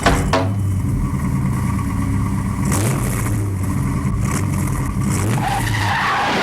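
Cartoon sound effect of a car engine running and revving, its low drone shifting in pitch a couple of times before cutting off about six seconds in.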